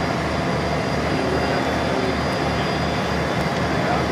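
Passenger ferry under way: its engine running with a steady low throb under an even rushing noise.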